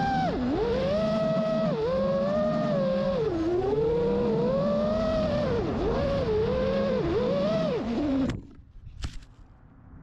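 FPV racing quadcopter's brushless motors whining, the pitch swooping up and down with throttle through the flight. The whine cuts out abruptly near the end, followed a moment later by a short knock as the quad comes down in the grass.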